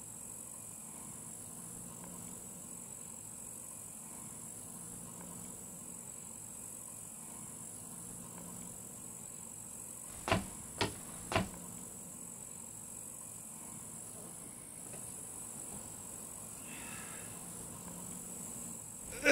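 Faint steady hiss and low hum, broken about ten seconds in by three sharp knocks roughly half a second apart.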